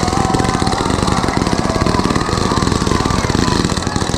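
Fireworks in a rapid, unbroken barrage of bangs and crackles, many per second, like a display's finale.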